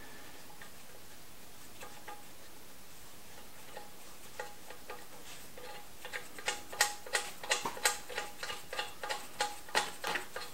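Steel washers and nuts clinking against the cylinder head studs as they are dropped on and spun down by hand. There are a few light ticks at first, then a quicker run of sharp metallic clicks through the second half.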